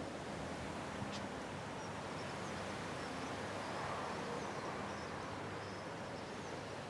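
Rushing noise of a large flock of starlings wheeling overhead in a murmuration, swelling about four seconds in as the flock passes over, with faint high chirps among it.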